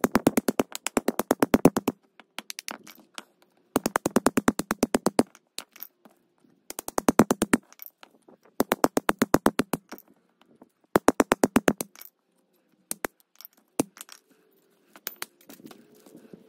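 Hatchet hammered through the copper windings of a washing machine motor's stator, cutting them off. The blows are sharp metal strikes in five fast runs of about ten a second, with a few scattered strikes near the end.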